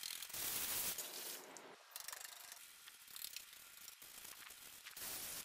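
Stiff-bristled brushes scrubbing soap paste over bare plastic and painted car-body parts behind a removed bumper cover: scratchy rasping strokes of bristles on the panel. The scrubbing is loudest in the first second and again near the end, with lighter rubbing in between.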